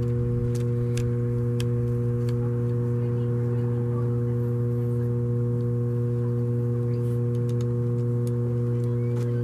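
A steady low hum holds one unchanging pitch, with faint sharp clicks and taps scattered through it as the aluminium tripod's legs and leg locks are handled.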